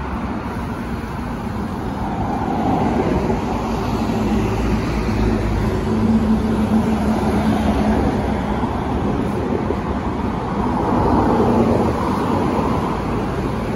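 Scania K230UB city bus's diesel engine running as the bus pulls away from the stop, growing louder about two seconds in and swelling again later, with passing road traffic behind it.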